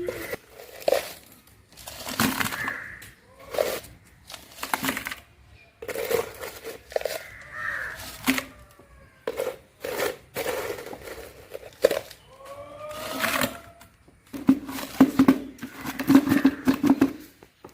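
Soil being scooped and dropped into a bucket: a long run of separate scraping and thudding strokes, some in quick clusters. A few short pitched calls come in about two-thirds of the way through.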